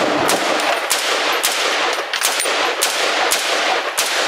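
Armalite AR-10 rifle in 7.62×51 mm / .308 firing a rapid string of semi-automatic shots, about two a second, each crack trailing off in echo.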